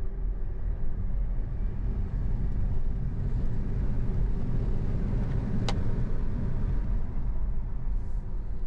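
Cabin noise of a Volkswagen ID.5 Pro electric car in a hard full-throttle acceleration from a standstill, then slowing: a steady rumble of road and wind noise. A single sharp click about two-thirds of the way through.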